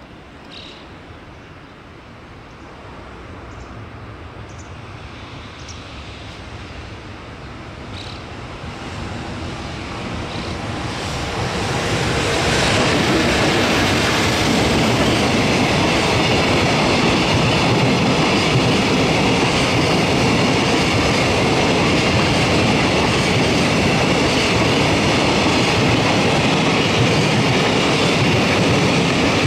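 JR Freight container train hauled by an electric locomotive, growing steadily louder as it approaches over about twelve seconds, then running past loud and steady as the long string of container flat wagons rolls by.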